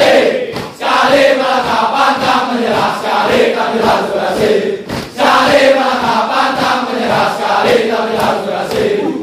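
Large group of young police recruits chanting a yel-yel in unison, a rhythmic shouted song, with hand claps keeping the beat. The chant breaks off briefly about a second in and again about five seconds in.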